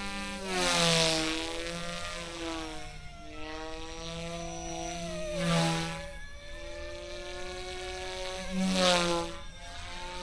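Eachine E120S small electric RC helicopter in flight, its motor and rotor whining and shifting in pitch as it manoeuvres. It swells louder with a rushing sound three times, about a second, five and a half and nine seconds in, the pitch dropping as each swell passes.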